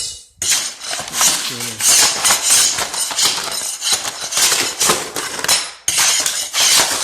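Old floor tiles being pried and broken up off a concrete floor: a run of harsh scraping and clinking of tile pieces, with a few short breaks.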